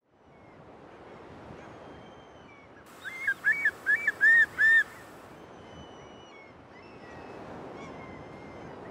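Far Eastern curlew calling: a run of about seven loud notes, each rising then falling, packed into some two seconds near the middle. They sound over a steady wash of water and wind, with faint thin whistles from other shorebirds.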